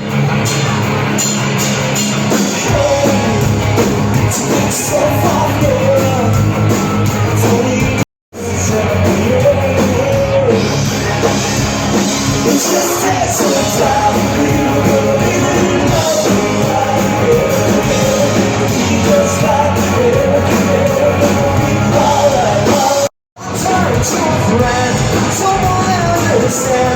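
Rock song with a singer and band playing steadily, cut off briefly twice by edits.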